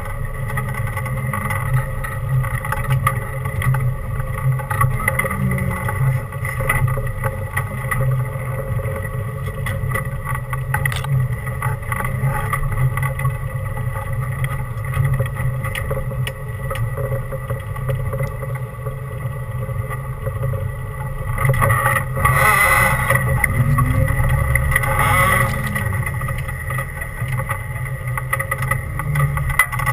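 Off-road 4x4's engine running at low speed as it crawls over a rough dirt trail, heard from inside the cab, a steady low rumble with a constant whine over it. A little past two-thirds through it gets louder for a few seconds as the engine picks up briefly, then settles again.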